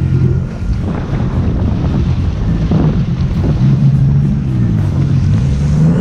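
Jet ski engine running on the water, its pitch shifting a few times, with wind buffeting the microphone.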